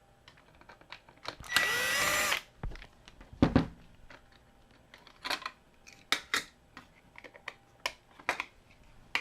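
A small electric screwdriver whirs briefly, about a second and a half in, backing screws out of a plastic action figure's foot. Afterwards come a knock and scattered clicks of the plastic parts being handled.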